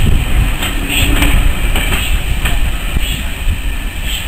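Heritage passenger coaches rolling past on the rails and drawing away: a steady rumble of wheels on track with scattered sharp clicks, fading a little as the train recedes.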